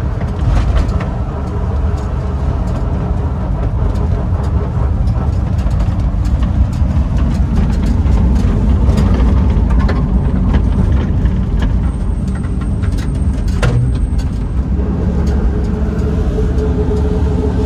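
Air-cooled flat-four engine of a 1964 VW Type 2 Ruthmann V80 cherry picker truck running steadily while the truck drives, heard from inside the cab with road noise. There is a single sharp knock about fourteen seconds in, and a steady tone joins near the end.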